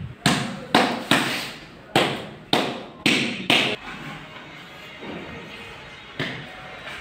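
Sharp knocks on a large glazed floor tile as it is tapped down by hand into the trowelled adhesive to bed it level: seven quick knocks in the first few seconds, then a single one near the end.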